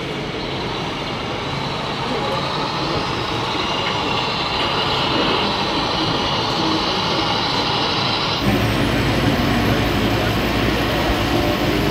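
Sound module of a radio-controlled Scania truck model playing diesel truck engine noise as it drives, over the din of a crowded exhibition hall. About eight seconds in, the sound changes abruptly to a lower, steady engine drone.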